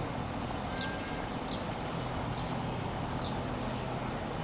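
Short, high bird chirps repeated about once a second over a steady low mechanical hum.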